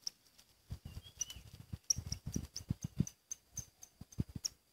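Insects chirping outdoors: short high calls repeating three or four times a second over a steady high drone, with scattered sharp clicks and soft low thuds.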